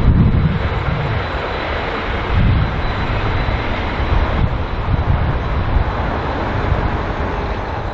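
A consist of Pacific National 81 class diesel-electric locomotives, each with an EMD 16-645 V16 engine, rumbling past with a deep, steady engine throb and a thin high whine above it.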